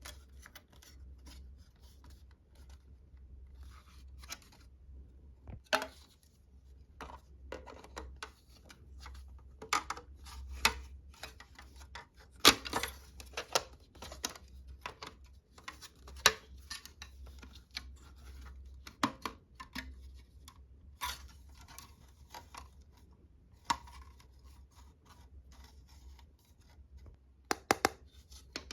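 Hands unboxing toys: irregular clicks, taps, crinkles and scrapes of plastic and cardboard packaging and small toy parts, with a few sharper knocks, over a low steady hum.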